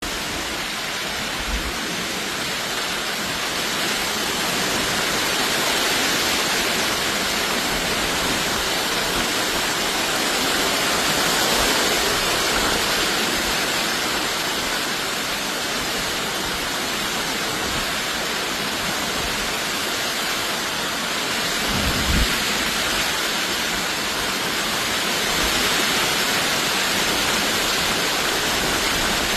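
Heavy storm rain pouring down in a dense, steady hiss, with one brief low thump about three-quarters of the way through.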